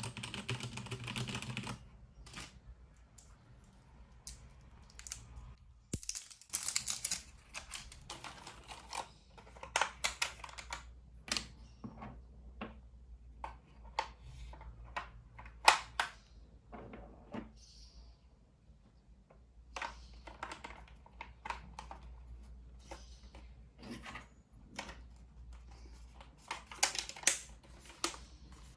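Filco Minila Air mechanical keyboard with brown switches: a quick run of typing, then scattered single keystrokes and clacks with some handling rustle in between.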